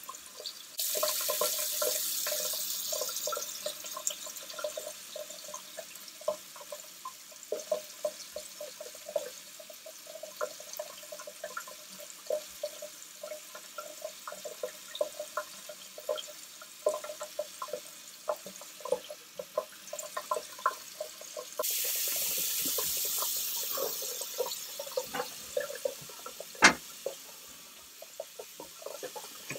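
Straight razor with a 1k edge scraping through lathered stubble in short strokes, heard as an irregular crackle of small ticks. A faucet runs for a few seconds about a second in and again about two-thirds through, and there is one sharp knock near the end.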